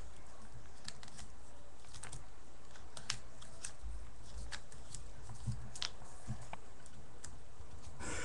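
A sheet of paper being folded and creased by hand on a wooden tabletop: scattered soft crackles and rustles as the fold is pressed down, with a broader rustle near the end.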